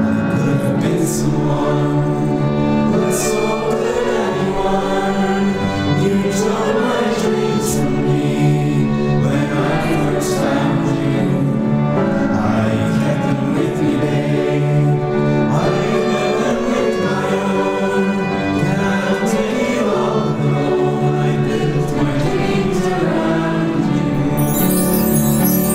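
A group of voices sings as a choir over a traditional Irish ensemble of harp and concertinas, with a few sharp percussion strikes. A bright, hissing percussion sound, like a shaken tambourine or cymbal, comes in near the end.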